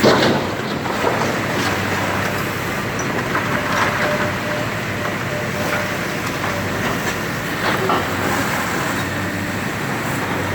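Demolition machinery running steadily, with a few sharp knocks or crunches of debris, one near the start and others about four and eight seconds in.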